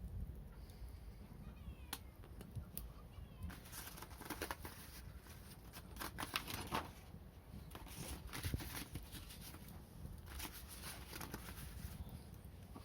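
Wood fire crackling and popping, with sharp snaps that come in clusters over a low steady rumble.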